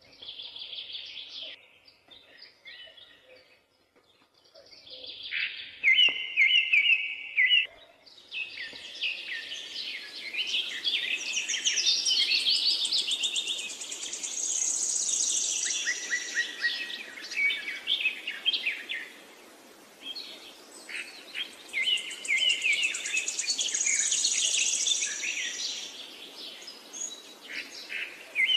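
Many small birds chirping and twittering. A few loud chirps come about six seconds in, then from about eight seconds in a dense, overlapping chorus runs over a steady background hiss.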